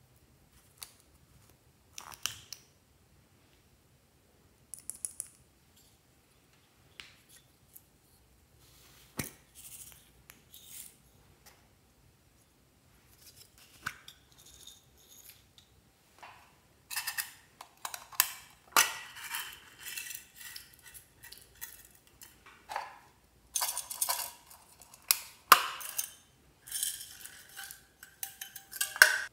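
Small plastic novelty containers being opened and handled and glitter, sequins and beads tipped out of them and a packet into a glass dish: scattered plastic clicks and taps, then, from about halfway, dense rattling and rustling of the glitter pouring and the packet shaking.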